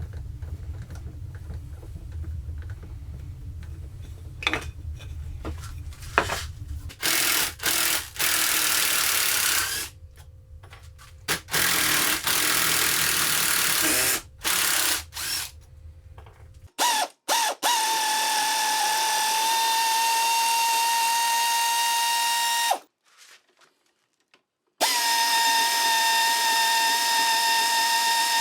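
Power drill running in bursts, then in two long steady runs of a high whine that each stop abruptly, after a few seconds of tool-handling clicks; it is driving out the screws that hold a quick-release woodworking vise to the bench.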